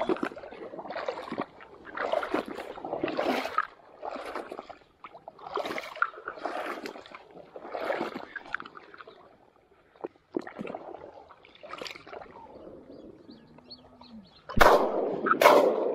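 Wading through shallow marsh water and reeds, with a sloshing step about every second. Near the end, two shotgun shots come about a second apart, much louder than the wading.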